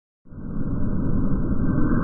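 A low, steady rumble that fades in a quarter of a second in and then holds level.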